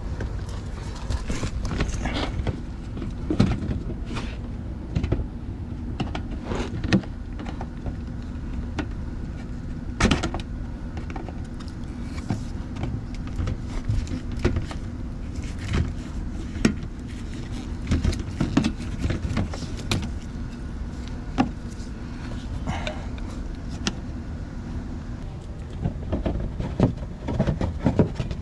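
Irregular sharp clicks, knocks and rattles of hand work on a car: plastic retaining clips being pried out and a plastic panel being taken off. A steady low hum runs underneath.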